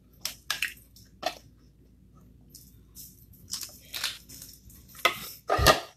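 Cooked lobster shell being cracked and snapped apart by hand and eaten: a string of short crunches and cracks with chewing, the loudest one near the end.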